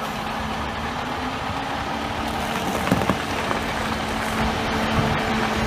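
KME fire engine's diesel engine running as the truck drives slowly past, a steady drone that grows a little louder, with a hiss of tyres on the wet, slushy road.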